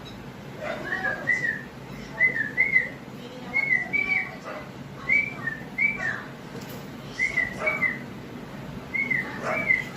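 A two-note whistle repeated about seven times, each pair made of two short notes that rise and fall.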